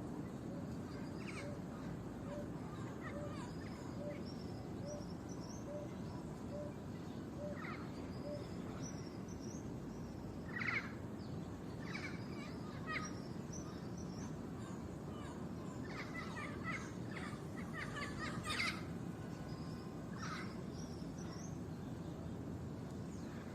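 Several wild birds calling over a steady low outdoor background hum. In the first third a bird repeats a short low note about once or twice a second, with thin high chirps around it. Louder calls come about halfway through and again near the end, the loudest just before the end.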